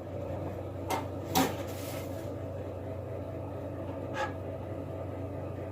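Light knocks and clicks from handling an old metal toolbox: two close together about a second in and another about four seconds in, over a steady low hum.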